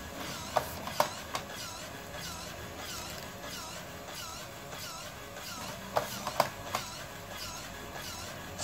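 Electric cigarette-filling machine, fitted with a motor noise reducer, running with only a small buzz and a regular wavering whine about twice a second. Two quick runs of three sharp clicks come, one about half a second in and one about six seconds in.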